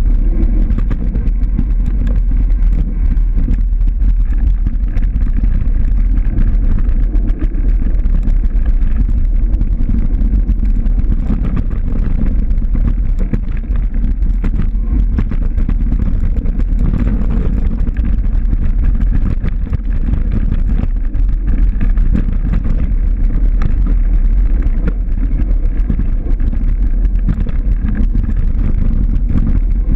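Steady loud low rumble of wind buffeting a moving camera's microphone, with faint scattered clicks and rattles.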